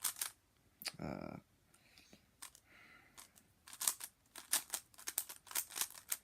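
Plastic speedcube (a Zcube M) being turned fast by hand: runs of quick clicking turns, coming thickest in the second half.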